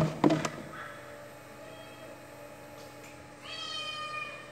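Two sharp knocks at the start, then about three and a half seconds in a cat gives one long meow.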